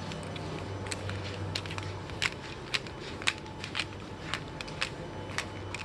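Steady low hum inside a NEL C751A metro car, overlaid by a run of sharp, irregular clicks, about two a second.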